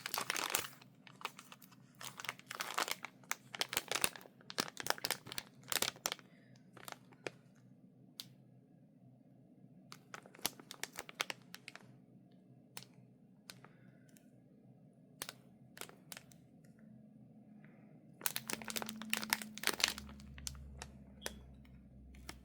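Packaging crinkling and rustling as wrapped items are pulled out and unwrapped by hand, in bursts of sharp crackles with quieter pauses between.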